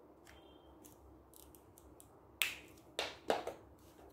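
Scissors and a marker handled on a tabletop: a few faint taps, then three sharp clicks in the second half as the scissors start snipping into paper.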